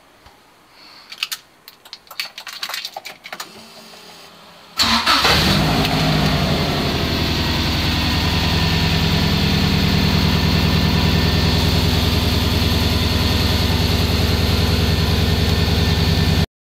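A car's four-cylinder engine starts about five seconds in and then idles steadily, after a few seconds of clicks and handling noise. The idle cuts off abruptly near the end.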